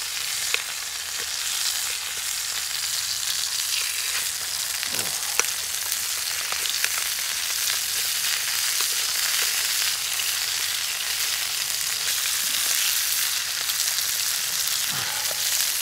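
Thick burgers sizzling in a Trangia frying pan over its spirit burner: a steady frying hiss, with a few brief clicks.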